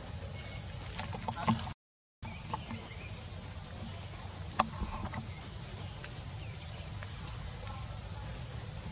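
Outdoor ambience: a steady high insect drone over a low wind rumble, with a few small clicks and rustles. The sound cuts out completely for about half a second roughly two seconds in.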